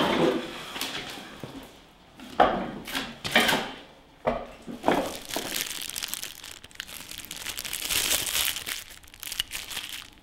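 A clunk at the start, then thin plastic wrapping crinkling and rustling in irregular handfuls as a small intake air filter is unwrapped by hand.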